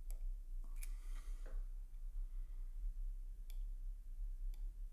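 Faint small clicks of steel tweezers on a Rolex calibre 3035 movement as the shock-absorber spring is closed over the escape wheel's cap jewel: three sharp ticks spread over a few seconds, with a light rustle after the first, over a low steady hum.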